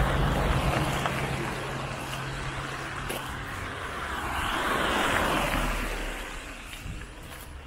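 Cars passing on a wet road: a pickup truck's engine hum and tyre noise fading away at the start, then a small car's tyres hissing on the wet asphalt as it approaches, passes about five seconds in, and fades away.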